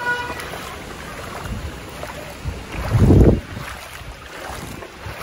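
Legs wading through deep floodwater, the water sloshing and splashing with each step. About three seconds in there is one much louder low splash or thump.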